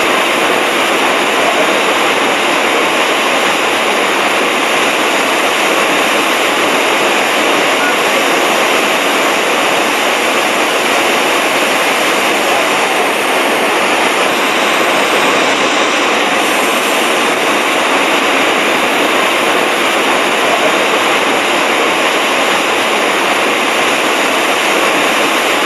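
Iguazu Falls' cascades pouring over the cliff, a loud, steady rushing of falling water with no breaks.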